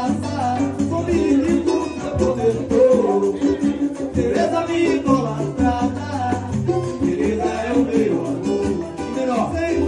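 Samba music with a cuíca playing along, its rubbed friction-drum voice gliding up and down in pitch over a stepping bass line.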